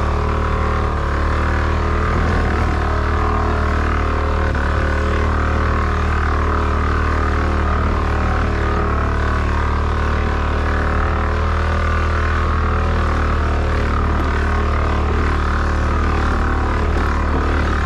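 Motorcycle engine running at steady revs while the bike rides along a sandy dirt track, a low, even engine note that barely changes pitch.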